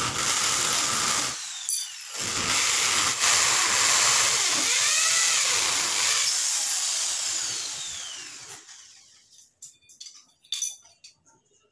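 Corded electric drill boring a hole down into a floor tile, a steady high grinding whir. It stops for about a second near the start and picks up again, then is released about six seconds in and the motor winds down with a falling whine over about two seconds. A few light clicks and taps near the end.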